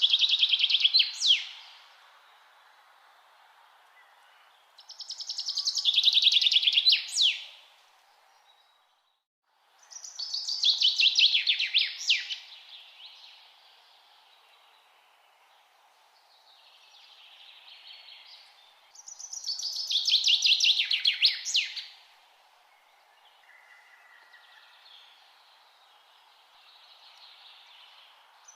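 A songbird singing the same phrase over and over: a quick run of notes falling in pitch, ending in a sharp upward note, four times, with fainter song from other birds in the gaps and a steady background hiss.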